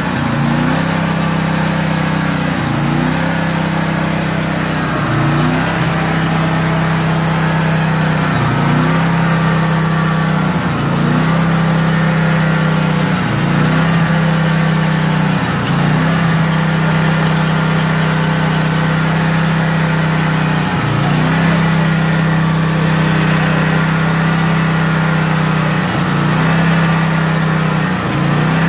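Engine of a portable band sawmill running steadily, its pitch dipping briefly and recovering every two to three seconds.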